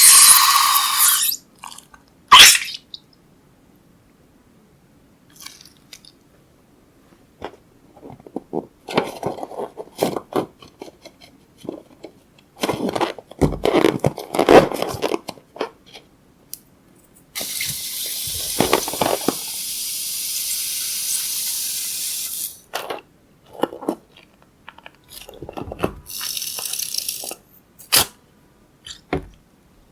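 Hands making slime: scattered crackling, squishing and clicking, with a steady hiss lasting about five seconds past the middle and a shorter hiss near the end.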